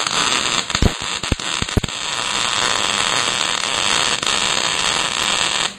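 Lincoln MIG welder's arc laying a bead on steel tubing: a few sharp sputtering pops at first, then a steady crackling hiss that cuts off abruptly near the end as the trigger is released.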